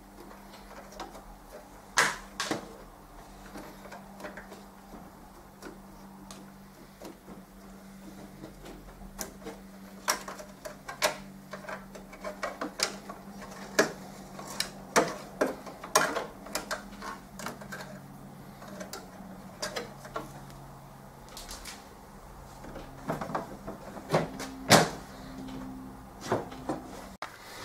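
Hands working on a boxed 3D printer, pulling off plastic transit clamps and packing: irregular hard clicks, knocks and rattles, over a faint steady hum.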